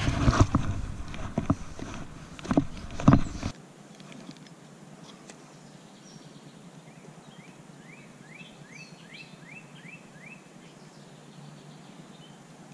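A fish splashes into the pond, followed by rustling and two loud knocks; then, after an abrupt cut, a quiet outdoor background in which a bird sings a quick run of about eight slurred notes.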